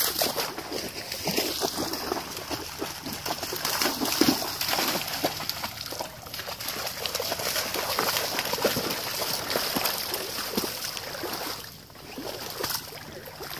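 Irregular splashing and sloshing of steps wading and running through shallow floodwater among reeds and flooded timber, dying down near the end.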